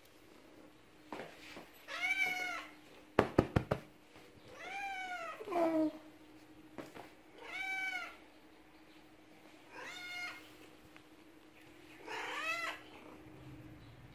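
Domestic black-and-white cat meowing repeatedly to greet its owner: about five long meows a few seconds apart, most rising then falling in pitch. A quick run of sharp knocks a little after three seconds.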